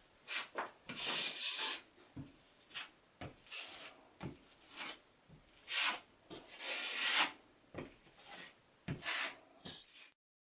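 Irregular rubbing and scraping strokes over a drywall patch as the joint compound is worked smooth, some short and some drawn out. The sound cuts off suddenly near the end.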